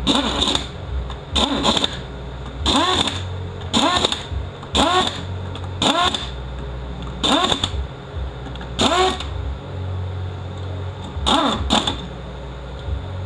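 A handheld power driver run in about ten short bursts, each a quick rising whine as the motor spins up, running bolts down into a transmission being reassembled.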